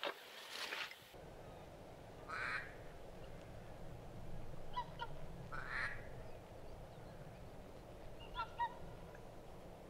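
Short duck quacks over a steady low rumble of wind on the microphone: one call about five seconds in and two close together near the end, the loudest sounds here. Two brief hissy bursts come a few seconds apart.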